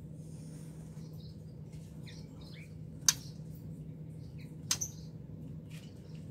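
White-rumped shama moving about its wire cage: a sharp click about three seconds in and two more near five seconds as it lands on and clings to the cage wire, with faint short chirps between. A low steady hum runs underneath.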